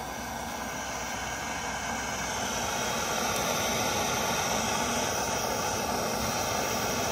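Handheld plumber's gas blowtorch flame hissing steadily, growing a little louder over the first few seconds, while it heats a rusted brake caliper bolt so that it will come loose without breaking.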